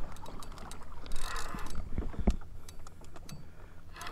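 Spinning reel cranked in short bursts under the load of a heavy fish being pulled straight up, its gears whirring about a second in and again near the end, with scattered light clicks and knocks from the rod and reel.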